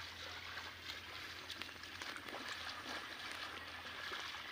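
Faint outdoor ambience of people walking along a wet, muddy path through rice grass: soft footfalls and swishing grass, over a low steady rumble that fades about halfway through.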